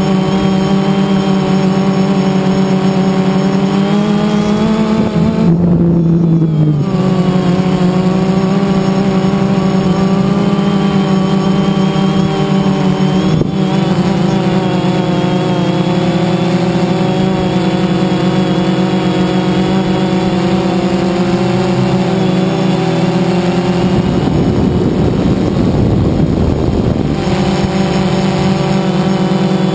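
DJI Phantom 2 quadcopter's motors and propellers buzzing steadily, as heard by the camera riding on the drone itself. The pitch dips and climbs back about six seconds in as the drone changes its throttle, and a rough low rushing noise joins for a few seconds near the end.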